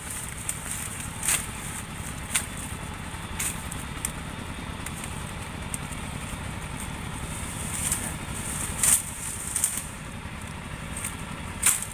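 Dry bamboo leaf litter crackling in a few short, sharp snaps, about six in all, the loudest near the end, over a steady low rumble.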